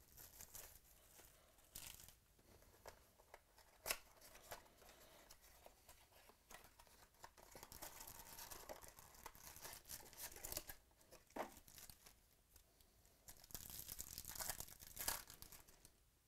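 Faint tearing and crinkling of a trading-card pack's plastic wrapper, with its white cardboard sleeve and the cards being handled. There are a few sharp clicks, and the rustling is busiest near the end.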